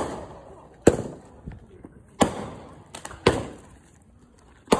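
Consumer aerial fireworks going off: five loud bangs about a second apart, each echoing and dying away, with a few smaller pops between.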